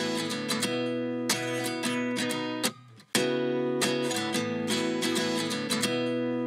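Intro music led by a strummed acoustic guitar. It drops out for about half a second a little before halfway, then starts again.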